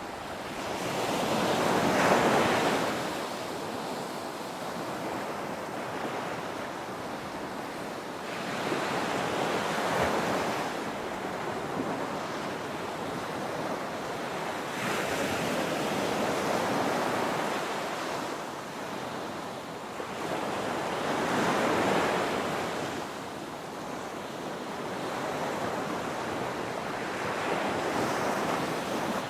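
Ocean waves breaking on a beach: the surf swells up loudly and washes back out about every six seconds, five surges in a row.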